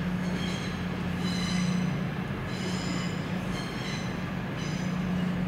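EMR Class 222 Meridian diesel multiple unit running slowly past, its underfloor diesel engines giving a steady low drone. Short high-pitched squeals sound over it about once a second.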